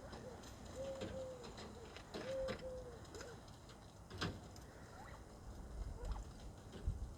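Birds giving short, low cooing notes in pairs, about a second and two seconds in, with scattered soft clicks and a sharp tap about four seconds in.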